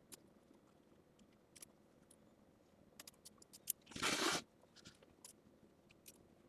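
Scissors trimming fabric close to the stitching: scattered light snips and clicks, with one louder rasping cut lasting about half a second around four seconds in.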